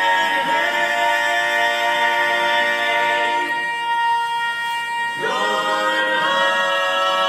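Male barbershop quartet singing a cappella in four-part harmony, holding long chords. About three and a half seconds in, the lower voices drop out under one held high note, and the full chord slides back in about five seconds in.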